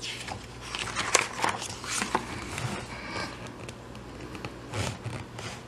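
Paper rustling and crackling as a picture-book page is turned and pressed flat by hand, in a run of irregular rustles with a few sharper ticks.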